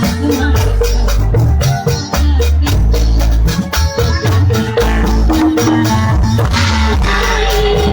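Live Sundanese bajidoran music: hand drums and percussion striking a steady beat over heavy bass notes, with a cymbal-like crash about seven seconds in.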